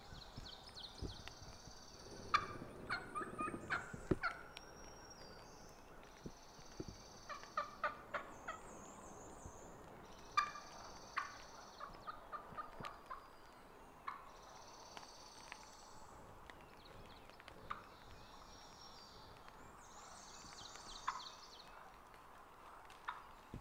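Wild turkey calling: runs of short, sharp clucking and yelping notes, the densest string of them about two to four seconds in. A small songbird's high, brief trill repeats every couple of seconds behind it.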